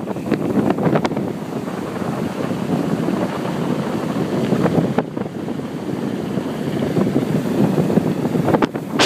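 Wind buffeting the microphone on a fast downhill bike ride: a steady low rushing rumble, broken by a few short knocks.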